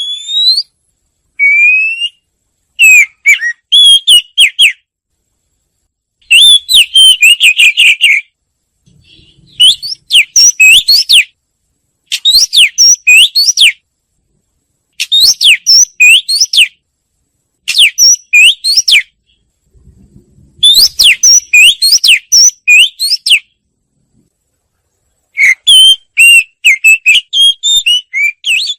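Wagtail song: loud phrases of quick, rising whistled notes, each phrase one to two seconds long, repeated with short pauses between.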